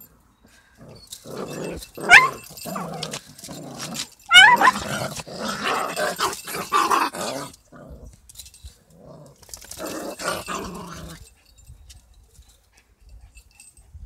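Dogs growling in a scuffle, with two sharp, high yelps about two seconds and four and a half seconds in. A second burst of growling follows after a short pause.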